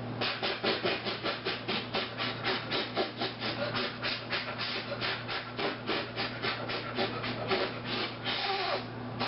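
A child's mouth beatbox attempt: a fast, even string of spitty, rasping puffs, about four a second, ending in a longer rasp near the end. It sounds like a frog having a hairball rather than a beat.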